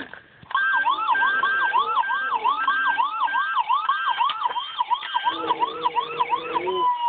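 Siren sound in a rapid yelp pattern: a rising sweep repeated about three times a second, starting about half a second in and ending with a falling tone near the end.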